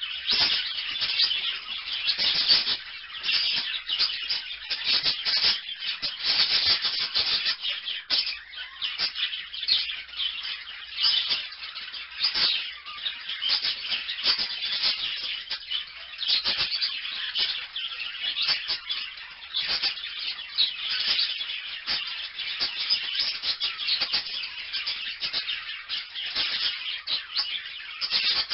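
Small parrots chattering without pause: many high, rapid chirps and warbles overlapping, as from several birds calling at once.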